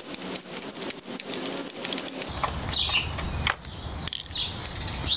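Flathead screwdriver working the screws out of a plastic string-trimmer housing: many small clicks and scrapes. About two seconds in the sound changes, and short bird chirps come over a low outdoor rumble.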